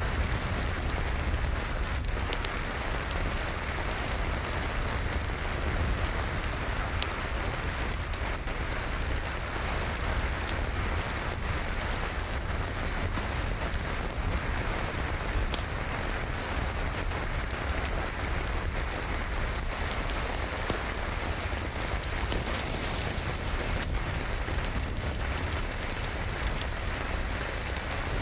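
Steady rain falling, with a deep rumble underneath and scattered sharp crackles from a wood fire burning in a fireplace.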